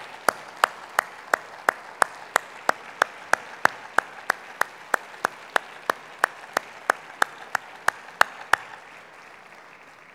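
Audience applause with one person's loud, steady claps close to the lectern microphone, about three a second. The close claps stop about eight and a half seconds in and the applause fades out near the end.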